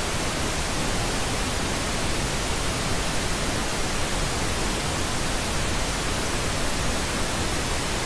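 Steady, loud hiss of television static: an even rush of white noise with no change.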